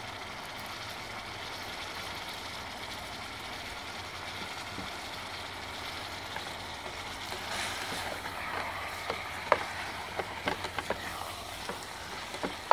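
Ground beef frying in a stainless steel pot, a steady sizzle. From about nine seconds in, a metal spatula clicks and scrapes against the pot as the meat is stirred.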